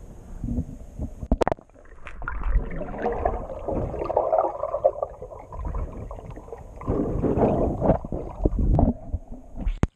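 Muffled underwater sloshing and gurgling of pool water churning around a submerged camera as a swimmer dives and kicks close by, with a sharp knock about a second and a half in.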